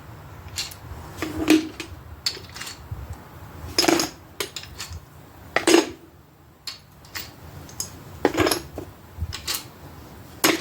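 Steel rocker arms being dropped one at a time into a container, each landing with a metallic clank that rings briefly, about every two seconds, with lighter clicks of handling in between.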